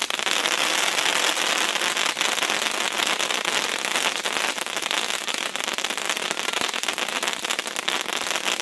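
Hot Flash fountain firework spraying sparks with a loud, steady hiss, thick with rapid crackling from its bursting stars.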